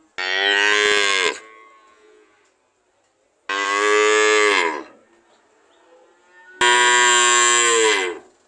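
Cow mooing: three loud moos about two seconds apart, each lasting a little over a second, with the pitch dropping at the end of each.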